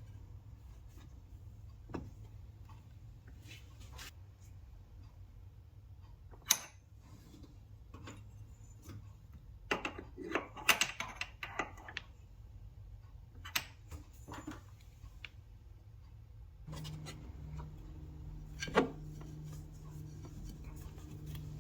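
Scattered clicks, taps and knocks, with a dense patch of rubbing and scraping about halfway through, from hands and tools working a fitting and hose onto an oil separator. A steady low hum starts suddenly near the end.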